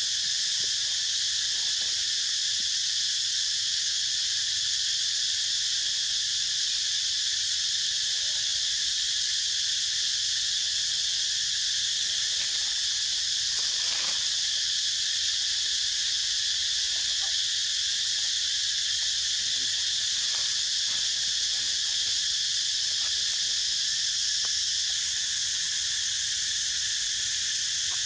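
A steady, high-pitched insect chorus, with a few faint clicks now and then.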